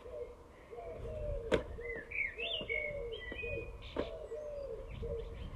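Pigeon cooing in short repeated phrases, with a small bird chirping about two to three seconds in. Two sharp knocks, about a second and a half in and again near four seconds.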